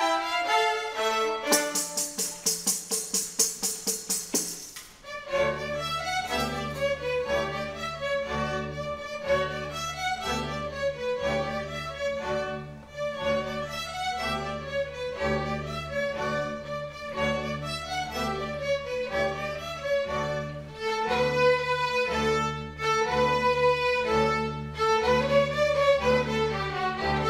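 Youth string orchestra of violins, cellos and double bass playing a lively piece, the violins carrying the melody. A rapid, evenly paced rattle sounds for about three seconds early on. After that the cellos and double bass keep up a steady repeated pulse of low notes.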